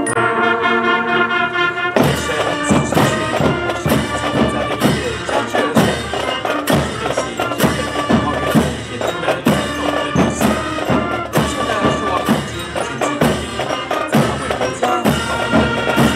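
Military drum and bugle corps playing: brass holds a chord, then about two seconds in the drum line enters with rapid, dense strokes under the brass.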